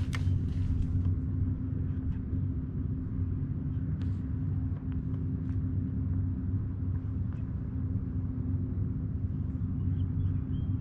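Steady low rumble with a constant low hum underneath, and a few faint light clicks.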